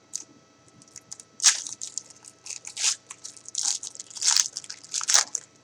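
A trading-card pack wrapper being torn open and crinkled, with irregular sharp crackles of the wrapper throughout.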